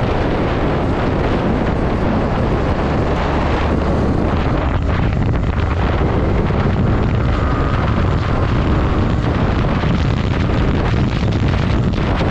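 Heavy wind buffeting on the microphone of a Yamaha R15 V3 motorcycle riding at speed on a wet road, a steady dense rumble with the bike running underneath.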